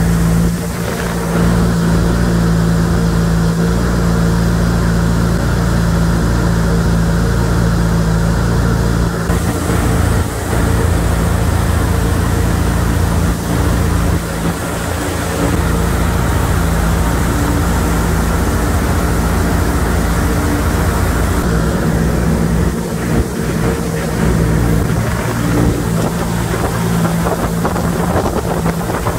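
Steady mechanical drone at an unchanging pitch, with several held low tones, from machinery running in a chassis dyno cell.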